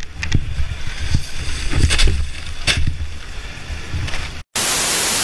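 Low rumble with several sharp knocks, then a brief dropout and a short burst of even static hiss that cuts off abruptly into silence.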